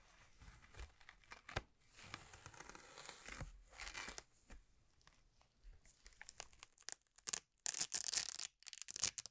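Packaging being handled and torn open, rustling and crinkling, with a louder run of sharp crackles near the end.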